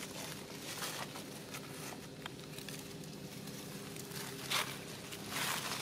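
Footsteps rustling and crunching in dry leaf litter, a few scattered crackles and then louder rustles about four and a half seconds in and near the end, over a steady low hum.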